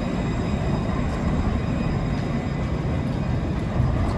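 Alstom Citadis 403 tram pulling out of the stop and rolling past: a steady rumble of wheels on rail with a faint electric whine from the traction motors.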